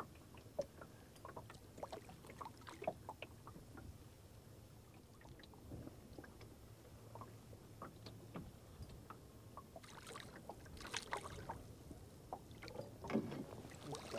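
Small waves lapping and slapping against the hull of a small open boat, quiet, with scattered light knocks and a few louder splashes about ten seconds in and near the end.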